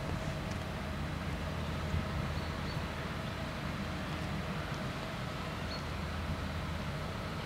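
Level crossing warning bells ringing steadily and faintly while the barriers are down, over a low steady rumble.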